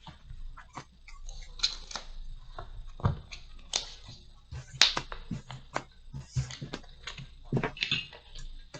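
Trading cards being gathered up and handled on a tabletop: irregular clicks, taps and light slaps.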